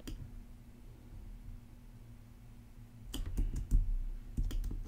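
Computer keyboard and mouse clicks: a quick run of irregular taps starting about three seconds in, over a faint steady low hum.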